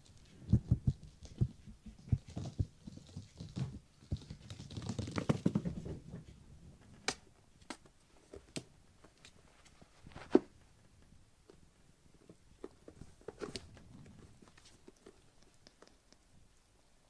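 Kittens playing: soft thumps and pattering of small paws on a floor mat, with a rustling scramble about five seconds in. After that come a few sharp taps and clicks, the loudest about ten seconds in.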